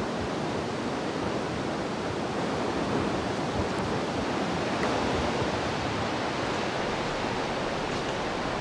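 Steady rushing noise, even in level, with a couple of faint ticks about four and five seconds in.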